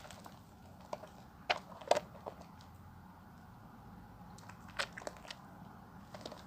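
Bar of perfumed soap being lathered: scattered wet crackles and squishes of the foam, a few sharper ones about one and a half, two and five seconds in.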